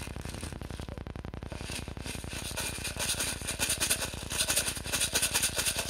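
Plastic bottle of 6 mm airsoft BBs rattling as it is handled and tipped, the pellets shifting against each other and the plastic, getting louder in the second half.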